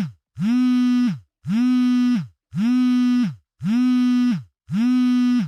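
Mobile phone vibrating: a buzz of a little under a second repeating about once a second, five times, each buzz rising in pitch as it starts and dropping away as it stops.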